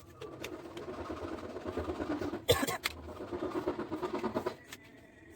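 A motor running in rapid pulses for about four seconds, with one sharp knock about halfway through.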